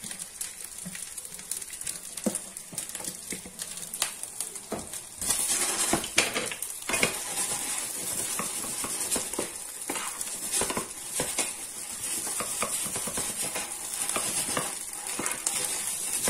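Par-boiled rice sizzling in a hot oiled pan as it is stirred with a wooden spatula, with repeated knocks and scrapes of the spatula against the pan; the sizzling and stirring get louder about five seconds in.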